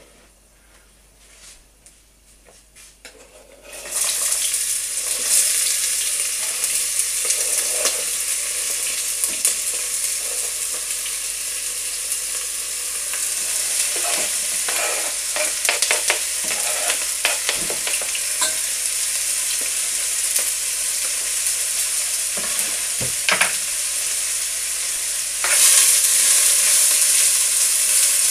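Chopped onions frying in hot oil in a pot: quiet at first, then a loud sizzle starts suddenly about four seconds in as the onions go in, and runs on steadily while they are stirred with a spatula, with scattered scrapes and taps. The sizzle grows louder near the end.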